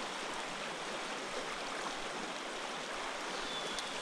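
River rapid flowing: a steady, even wash of running water.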